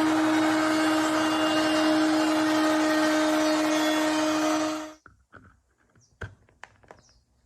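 A power tool motor running at high speed with a steady whine, cutting off abruptly about five seconds in, followed by a few faint knocks.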